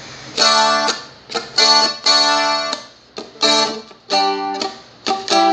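Seagull Merlin, a four-string acoustic fretted dulcimer, strummed through a song verse. Chords are struck in short groups of one or two, each ringing out and fading before the next.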